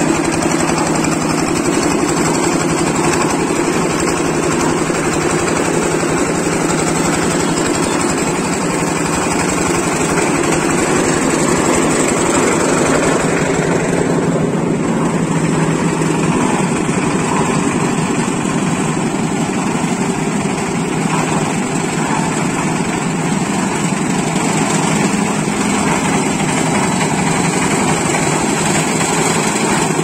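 Portable concrete mixer's small engine running steadily at an even speed.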